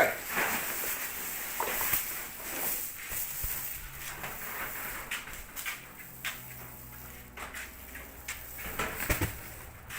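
Scattered light knocks and clicks.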